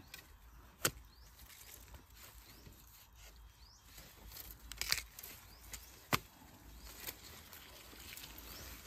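A few sharp woody cracks, one about a second in and two more in the second half, over faint rustling of dry leaves and stems as someone works at the base of a bamboo clump.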